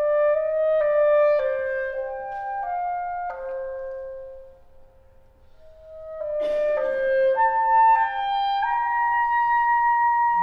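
Two B-flat clarinets playing a slow, expressive melody in long held notes with no accompaniment. The sound fades almost to nothing just before the middle, then the playing picks up again.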